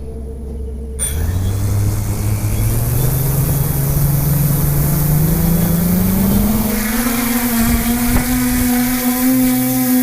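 TBS Discovery quadcopter's four brushless motors with 10-inch propellers spinning up: a hum that rises steadily in pitch for about six seconds, then holds a steady tone over a rushing hiss.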